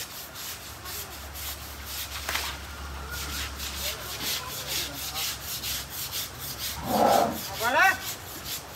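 Rhythmic scrubbing on an elephant's wet hide and ear, about three rasping strokes a second. A brief louder sound breaks in near the end.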